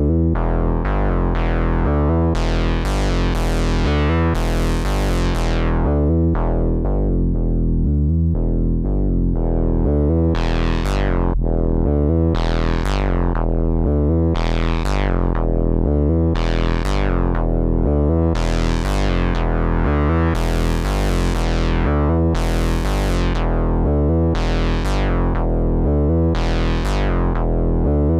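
IK Multimedia Uno Synth, a monophonic analog synthesizer, playing a looping bass sequence that repeats about every two seconds. Its brightness opens and closes in repeated sweeps, as the filter is moved.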